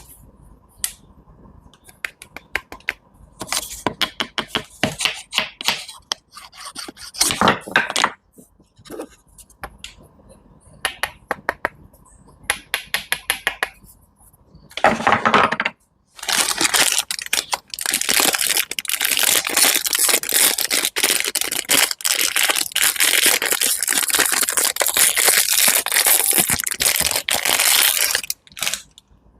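Close-miked crunching and crackling of food being cut and crushed: scattered crisp bursts at first, then a dense, continuous crackle for about twelve seconds from a little past the middle.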